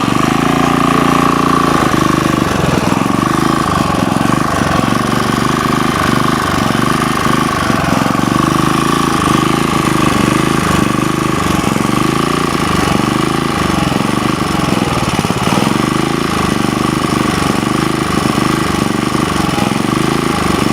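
Sportsman GEN2000 portable generator's four-stroke engine running steadily just after starting, with a steady high whine over the engine note, which wavers slightly up and down.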